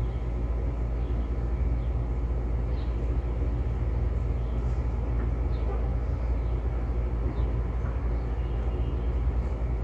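Steady low rumble of background room noise, with a few faint soft handling sounds as fabric is pinned by hand.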